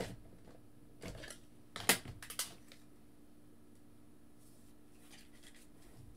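A few short sharp clicks and taps in the first two and a half seconds, the loudest about two seconds in, then a faint steady hum.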